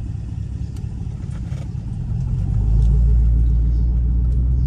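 Chevrolet Camaro SS's 6.2-litre V8, breathing through a newly fitted K&N cold air intake, running as the car drives, heard from inside the cabin. Its low rumble gets louder about two and a half seconds in.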